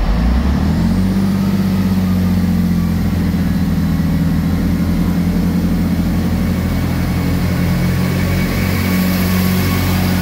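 Two-car Class 158 diesel multiple unit moving along the platform under power, its underfloor diesel engines running with a steady, loud low drone. The engine note rises about a second in and then holds.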